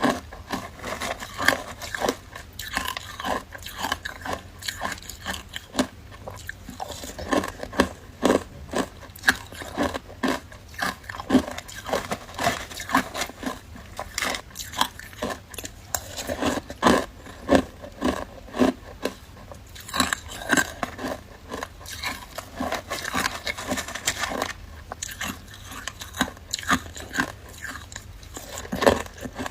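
A person biting and chewing frozen matcha ice, with a continuous run of irregular crunches several times a second.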